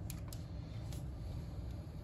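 A few short clicks of small parts and a screwdriver being handled at a plastic parts tray and a small plastic meter case, over a steady low hum.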